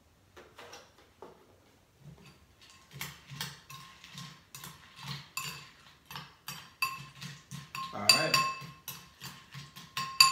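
A spoon stirring cereal and milk in a bowl, clinking against the bowl about three times a second with a short ring on each clink.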